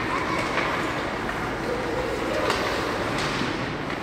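Ice hockey game ambience in an arena: a steady wash of crowd chatter and skating noise, with a few sharp clacks from play on the ice.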